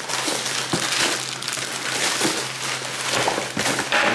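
Packaging being opened by hand: paper and plastic rustling and crinkling, with irregular crackles and small knocks.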